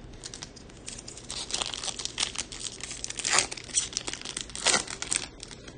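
Foil wrapper of a Topps Chrome baseball card pack being crinkled and torn open by hand: a run of crackling rustles, with the loudest ones near the middle and about five seconds in.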